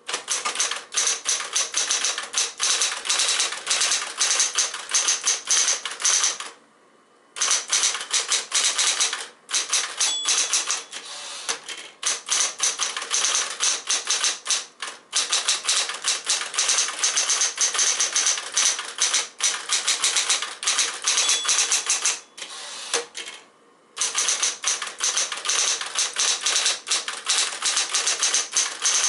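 Smith-Corona Coronet Electric portable typewriter typing at a quick, even pace: rapid motor-driven key strikes, the machine running smoothly on a fresh pair of drive belts. The typing stops briefly about seven seconds in and again for a second or two near the end.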